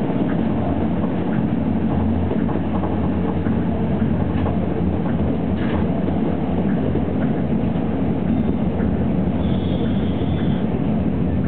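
Tokyo Monorail train running along its elevated track, heard from inside the car: a steady low rumble from its rubber tyres on the concrete guideway beam, with faint ticks. A short high-pitched tone sounds about nine seconds in.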